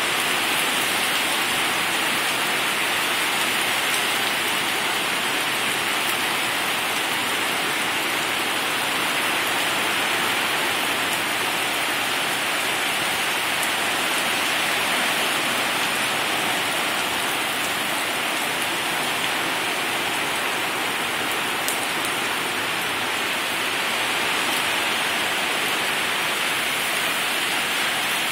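Heavy rain pouring down in a steady, even hiss on the road and lawns.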